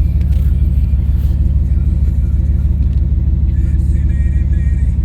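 Car engine idling steadily with a rapid, even pulse, its idle and fuel pressure freshly adjusted after a vacuum leak was fixed.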